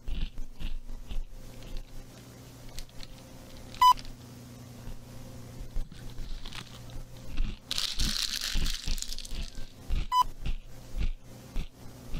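Short electronic beeps, three of them about six seconds apart, over a low steady drone from the horror tape's soundtrack. A burst of crinkling rustle close to the microphone comes a little past halfway, with scattered dull knocks.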